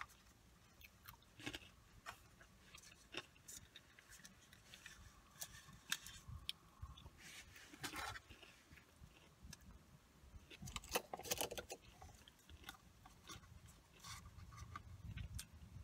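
Faint chewing of fast food, with scattered small mouth clicks and soft crunches; a few louder clusters of crunches about eight and eleven seconds in.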